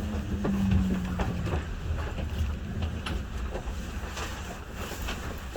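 Tokyo Monorail 1000-series train running and slowing on its approach to a station: a low rumble with scattered clicks, and a steady hum that stops about a second and a half in. The sound fades gradually.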